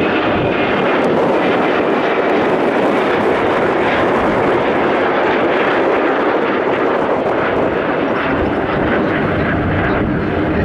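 Bombardier CRJ regional jet's turbofan engines at high thrust during a go-around: a loud, steady jet roar that eases slightly near the end.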